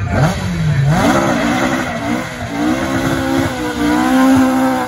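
Ford Escort Mk2 rally car launching from the start and accelerating hard. The engine note climbs and drops through gear changes, then rises steadily as it pulls away.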